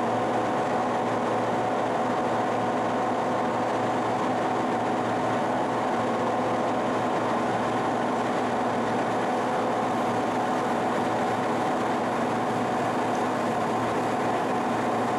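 1955 King 100-inch vertical turret lathe running: a steady machine hum with several constant tones over an even mechanical noise, unchanging throughout.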